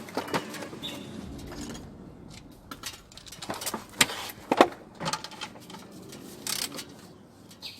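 Metal hand tools clinking and knocking irregularly against the power steering pump's mounting bolts and bracket as a 13 mm socket wrench and spanner tighten them back up. The two sharpest knocks come about four seconds in, half a second apart.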